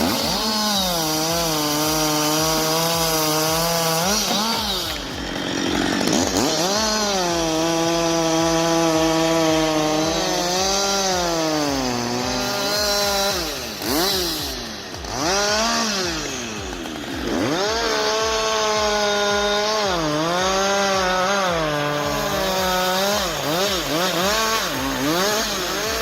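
Chainsaw running at high revs while cutting into wood. Its engine note sags and recovers several times as the chain bites in and frees up.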